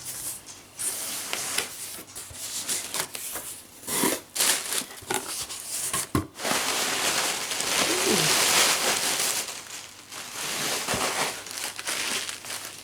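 Paper packaging crinkling and rustling as the contents of a gift box are handled and unwrapped, with some tearing and sharp crackles, busiest in the middle of the stretch.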